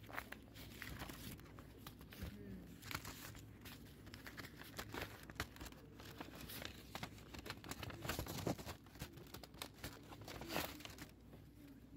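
Paper and a card being handled on a counter: irregular, faint rustling and crinkling with small clicks.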